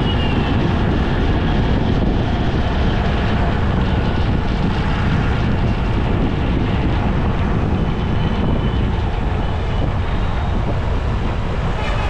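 Steady road noise from a moving vehicle on a busy city street: a continuous low rumble of engine, tyres and wind on the microphone, with surrounding scooter, motorcycle and car traffic.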